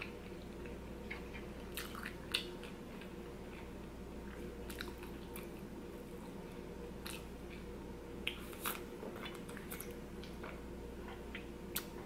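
A person chewing a mouthful of poutine, fries in gravy with cheese, close to the microphone: faint, scattered short clicks and smacks of the mouth.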